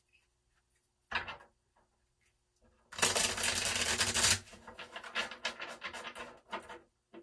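Tarot deck being riffle-shuffled: a short thump about a second in, then a loud, fast riffle of cards lasting about a second and a half from three seconds in, followed by softer clicks and taps as the cards settle and the deck is squared.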